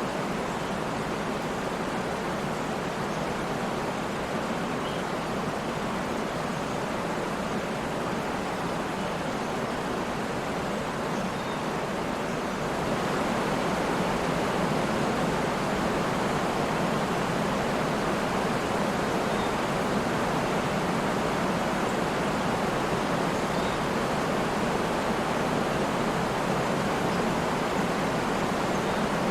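Waterfall: a steady rush of falling, splashing water, stepping up a little in loudness about halfway through.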